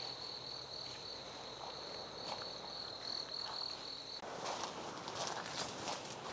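An insect trilling: one steady, high-pitched, finely pulsing note that stops about four seconds in, leaving a faint noisy rustle with a few soft clicks.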